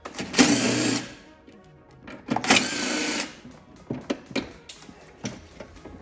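Cordless power driver spinning bolts loose in two bursts of about a second each, then a few light clicks of metal parts. The bolts are on the lawn tractor's battery terminal and starter solenoid, which are being taken off.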